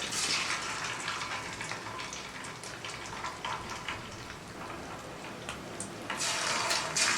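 Chicken wings frying in hot oil: a steady sizzle, starting suddenly, with scattered pops and a louder surge of sizzling about six seconds in.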